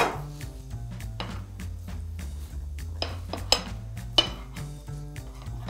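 Metal palette knife scraping and clinking against the cake plate as whipped cream is spread on a cake, with a few sharp clicks at the start and again around three to four seconds in. Background music with a steady bass line runs underneath.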